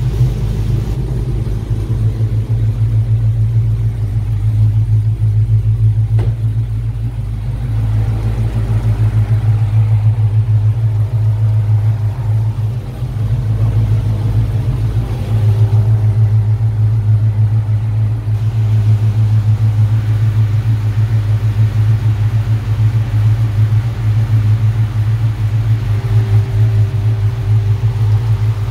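2008 Dodge Charger R/T's 5.7 Hemi V8 running at a steady idle, loud and even, just after a head gasket and head bolt job.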